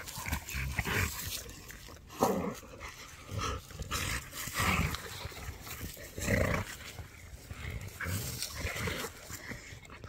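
Cane Corso dogs play-fighting, growling in short, irregular bursts every second or two.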